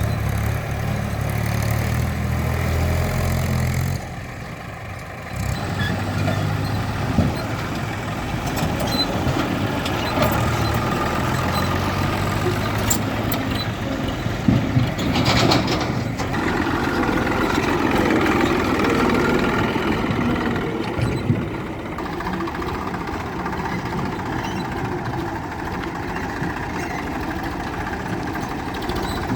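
Diesel engines of a backhoe loader and tractors running and idling while soil is loaded, with a few short knocks now and then.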